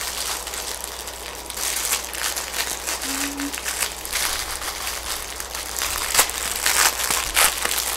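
Plastic packaging of a deflated blow-up toy crinkling and rustling as it is opened by hand, with a few sharper crackles near the end.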